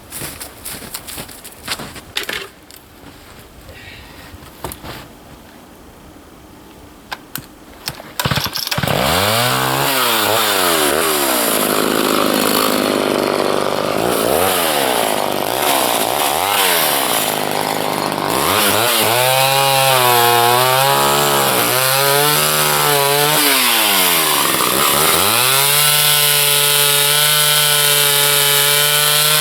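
Two-stroke chainsaw starting up about eight seconds in after a few knocks, then revved up and down several times before running at a steady high speed.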